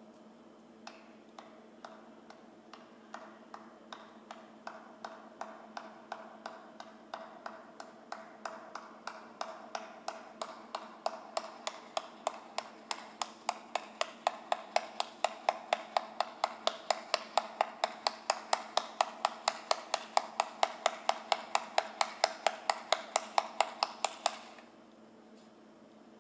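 A series of sharp, evenly spaced clicks or taps. They start about once a second and speed up to roughly four a second, growing steadily louder, then stop abruptly near the end. A faint steady hum lies underneath.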